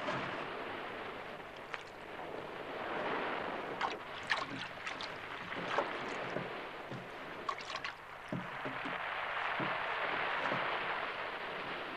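Sea water washing against a rocky shore, swelling and falling back, with a handful of sharp wooden knocks and clatters in the middle as a wooden rowboat is shoved off and climbed into.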